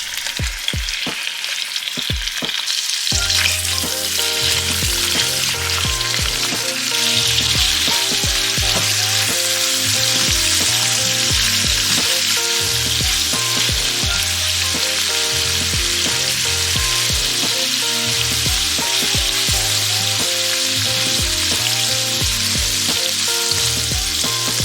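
Shrimp frying in hot vegetable oil in a pan, with a steady sizzle that grows louder about seven seconds in. There are scattered sharp clicks during the first few seconds.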